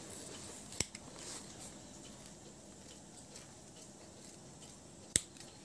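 Small scissors snipping as they trim a rubber sole patch to shape: quiet, scattered ticks of the blades, with two sharper clicks, one about a second in and a louder one near the end.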